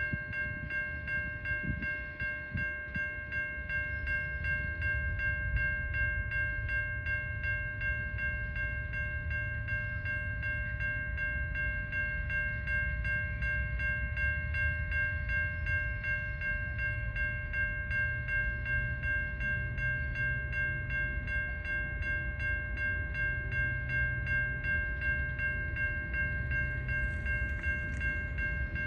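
Railway level crossing warning bell ringing steadily without a break, a bright, high-pitched ring, over a low rumble.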